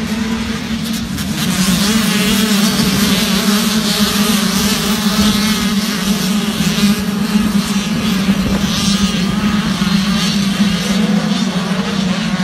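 A pack of motocross bikes racing, with many engine notes revving and rising and falling in pitch and growing louder about two seconds in, over a steady low drone.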